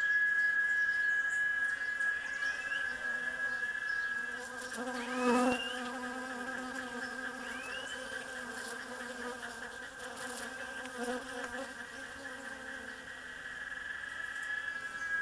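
Bees buzzing around a flowering tree; one passes close about five seconds in, its buzz briefly the loudest sound, and another fainter pass comes near eleven seconds. A steady high-pitched whine runs underneath, with a few short rising chirps.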